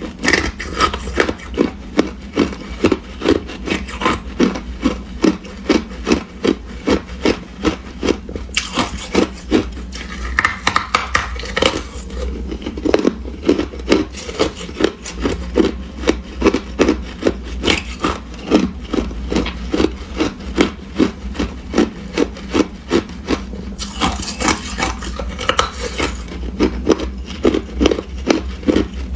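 Hard ice being chewed close to the microphone: a steady run of crunches, about two a second. Louder, sharper crunching comes twice, about nine seconds in and again near twenty-four seconds.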